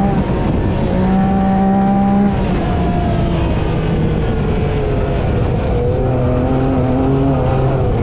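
Yamaha YXZ side-by-side's three-cylinder engine running while driving, its pitch held high for the first couple of seconds, then dropping and wavering lower as the throttle changes.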